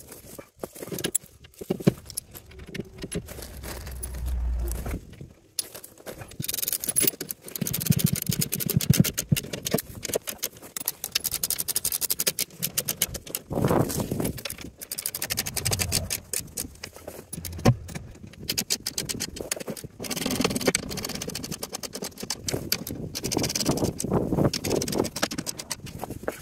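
Ratchet wrench tightening the skid plate's bolts from underneath the UTV: runs of rapid metallic clicking with pauses between, along with rattling and scraping of metal hardware.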